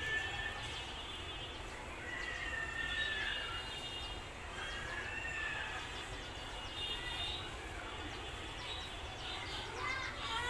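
A series of drawn-out animal calls over a steady background hiss, each one gliding up and down in pitch, with a cluster of quick chirps near the end.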